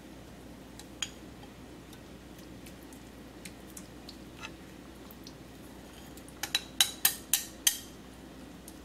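Chopsticks tapping and scraping against a ceramic bowl as sliced bamboo shoots are pushed out of it into a pan. A single tap about a second in, a few faint ticks, then a quick run of about six sharp clinks near the end.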